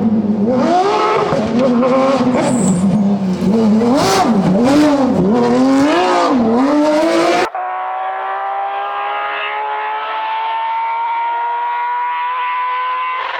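Porsche rally car engine revving hard, its pitch swinging sharply up and down as the throttle is lifted and pressed again. About seven seconds in it cuts suddenly to a Porsche engine held at high revs, its pitch climbing slowly and steadily.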